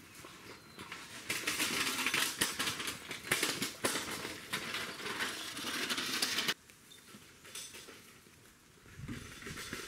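Footsteps crunching and rustling through dry leaf litter and twigs on a dirt track, a dense run of small crackles. The sound cuts off abruptly about two-thirds of the way through and becomes much quieter.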